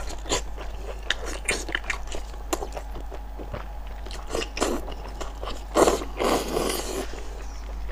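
Close-miked eating of spicy braised pork intestines: wet biting and chewing with many short smacks and clicks. The loudest part is a drawn-out sucking noise about six seconds in.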